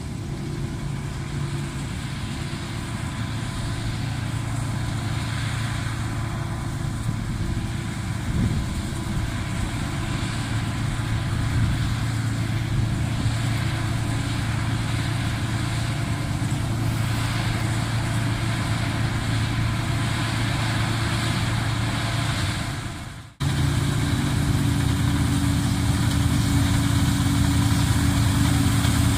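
Laverda M152 combine harvester running steadily under load while cutting wheat: a deep engine drone with several steady tones from the machinery. It drops out for a moment about 23 seconds in, then carries on a little louder.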